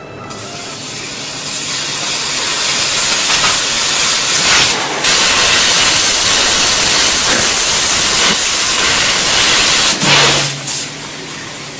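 Carbonated Coca-Cola hissing out under pressure through a slit that a red-hot knife blade has melted in the plastic bottle, the soda foaming and spraying out. The hiss builds over the first couple of seconds, stays loud, and drops briefly about five and ten seconds in.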